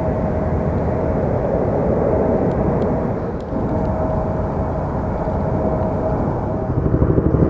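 Jet noise from a C-32, the Boeing 757 used as the smaller Air Force One, climbing away overhead: a steady rumble on its twin turbofans with a faint held whine. Near the end a helicopter's rotor beat comes in as a fast, even pulsing.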